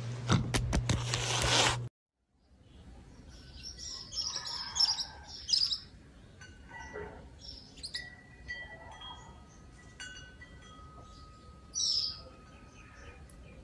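A short loud stretch of clicks over a steady low hum cuts off about two seconds in. Then wind chimes ring softly with long, sustained tones while birds chirp.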